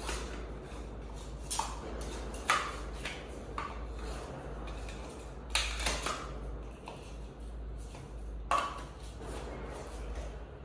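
Office chair parts being handled and fitted together: a handful of sharp metallic clicks and knocks, each with a brief ring, as the gas-lift cylinder and five-star base are worked on. The four loudest come about a second and a half in, at two and a half seconds, at five and a half seconds and at eight and a half seconds.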